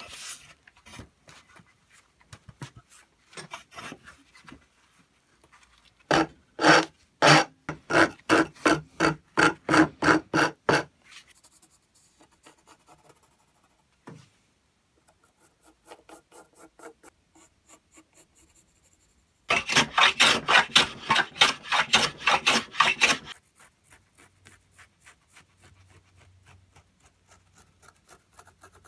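A hand tool worked back and forth on a hardwood block in two runs of quick, even strokes, about three a second, each lasting several seconds. Between the runs there are fainter scratches of a pencil marking out a plane-handle shape on the wood.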